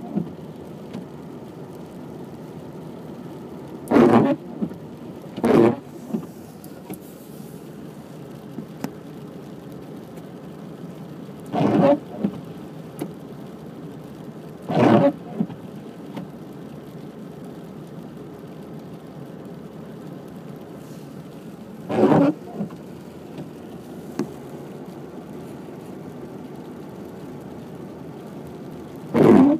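Michelin wiper blade sweeping across the windshield glass six times at uneven intervals, each pass a short loud burst of noise, over a steady car hum. The blade has turned noisy after about three months of use.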